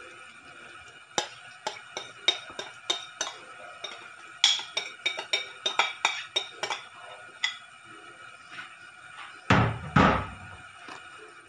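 A metal spoon clicking and tapping against a plastic container and the food inside as a tofu-and-vegetable mixture is pressed flat, a quick run of sharp clicks about two or three a second. Near the end come two heavier thumps.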